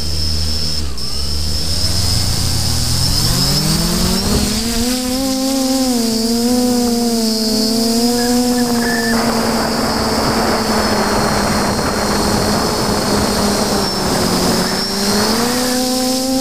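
Micro H-frame FPV quadcopter's electric motors and propellers heard from its onboard camera: a hum that climbs in pitch over the first four seconds as it lifts off the grass, then holds steady with small wavers as it flies low. A thin high whine runs under it, and a rush of wind noise comes in for several seconds in the middle.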